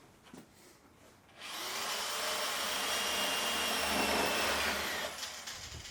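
Electric drill motor spinning up about a second and a half in and running steadily with a high whine for a few seconds, then winding down near the end.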